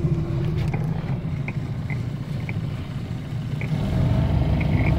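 Boat engine running steadily as the boat backs straight out in reverse, its note rising as the throttle is opened about four seconds in.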